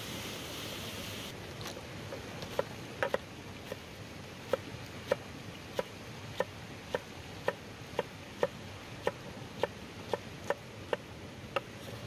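A cleaver chopping a green chili pepper on a wooden cutting board: a steady run of short sharp knocks, about two a second, starting a couple of seconds in over a steady hiss. A louder hiss fills the first second.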